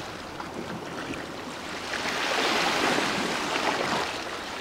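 Sea waves washing against shoreline rocks, a steady rushing that swells louder about two seconds in and eases off near the end.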